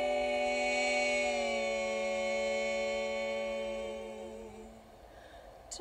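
Four women singing a cappella in close harmony, holding a chord that moves to a new chord about a second and a half in, then fades out near the end.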